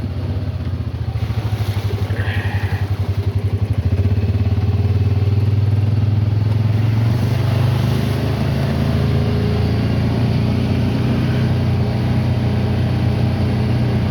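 Honda Pioneer UTV engine running steadily while driving, a low drone that pulses quickly for the first few seconds and then evens out.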